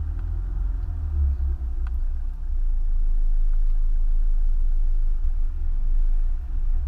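Four-wheel drive's engine and tyre rumble, heard from inside the cabin as it drives up the ramp onto a vehicle barge. The low rumble steps up in loudness about two and a half seconds in.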